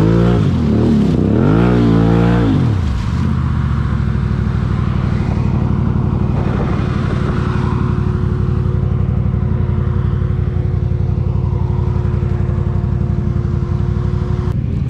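ATV (four-wheeler) engine revved up and back down in the first few seconds, then running steadily at low revs with a thin steady whine alongside.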